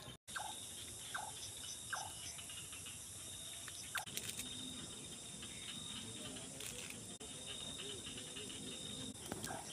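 Night insects trilling steadily over the crackle and pop of a small wood cooking fire. A few short falling chirps come in the first half, and a faint wavering call sounds in the second half.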